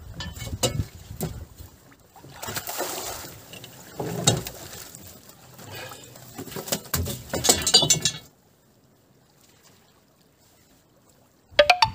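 A wet fishing net being hauled over the side of a flat-bottomed metal boat: water splashing and dripping, with sharp clicks and knocks against the hull in irregular bursts. It falls to near silence for about three seconds near the end.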